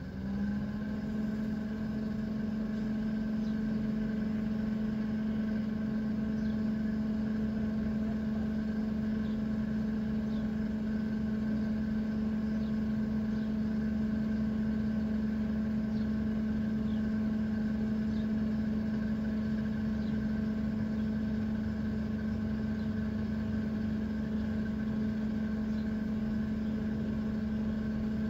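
An engine or motor running steadily, a constant-pitched hum that comes up just after the start and then holds without change.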